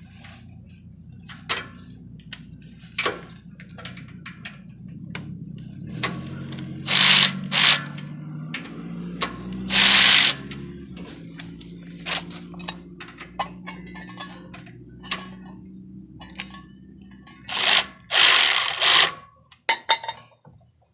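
Ratchet wrench clicking in quick runs as a bolt is driven in to fit a tailpipe, with a few short, loud hissing bursts in between.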